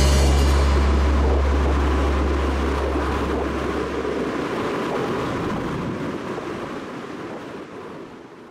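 Closing sound of the end card: a deep bass note holds for about four seconds under a rushing, surf-like wash. The wash fades away gradually to nothing.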